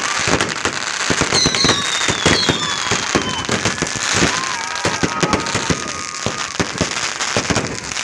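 Fireworks going off in rapid succession: a dense string of bangs and crackles from fountains and rockets, with a high whistle falling in pitch early on.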